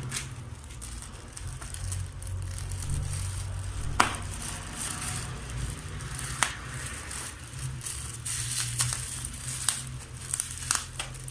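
A parcel's packaging being handled and torn open by hand: crinkling and scattered snaps and clicks, the sharpest snap about four seconds in.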